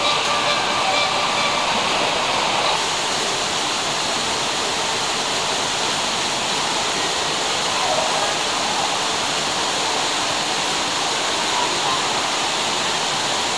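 Steady rushing and splashing of water from an outdoor fountain pool. About three seconds in, it takes over from a fainter ambience that holds a few steady tones.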